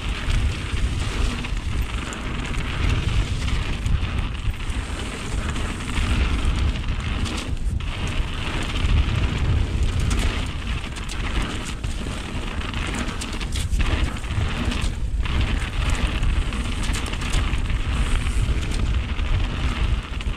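Mountain bike descending a wet trail: wind buffeting the microphone over the hiss and crackle of tyres rolling through wet dirt and gravel, with a few brief lulls.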